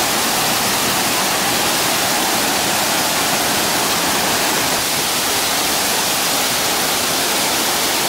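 Waterfall's thin curtain of water splashing into its plunge pool: a steady, even rush of falling water.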